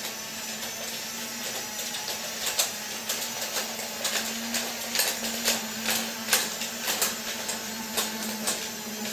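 Toy Disney monorail trains running on their track: the small electric drive motors make a steady hum, with frequent irregular clicks and ticks as they run.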